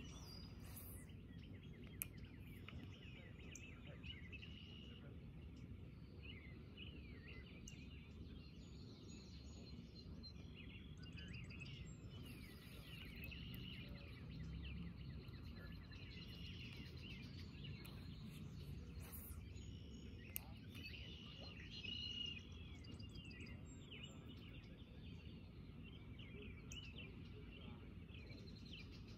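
Birds chirping over a low, steady outdoor rumble, with two sharp clicks: one about two seconds in and another about two-thirds of the way through.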